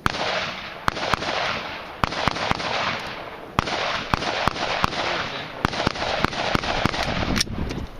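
A string of rifle shots, about eighteen sharp cracks fired at an uneven pace of two to three a second, with a loud rushing hiss between them.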